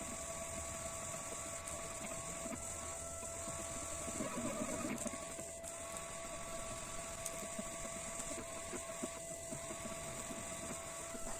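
Diode laser engraver at work: its stepper motors whine in short repeated moves, each a second or so long, over a steady tone and hiss, as the laser engraves lettering.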